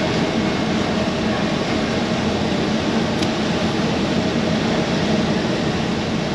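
Semi truck's diesel engine running steadily, heard from inside the cab.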